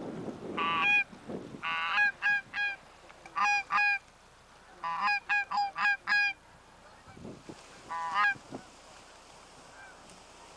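Canada geese honking: short, clear honks in quick bursts of one to six, spread over about eight seconds and loud over the background. A low rumble at the start.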